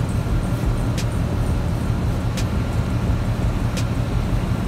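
Chevy Caprice engine idling steadily, its sound concentrated low, with a sharp click repeating about every second and a half.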